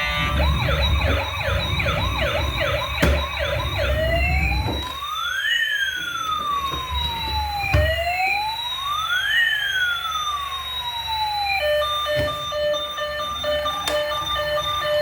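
Electronic siren of a toy emergency vehicle cycling through its patterns. It begins with a fast warbling yelp, changes after about four seconds to a slow rising-and-falling wail, and near the end switches to a steady, rapidly pulsed tone.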